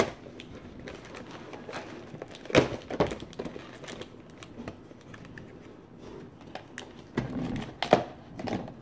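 Packaging being cut and torn open with a knife: scattered clicks and crinkling, with a few sharp knocks about two and a half seconds in, at three seconds and near the end.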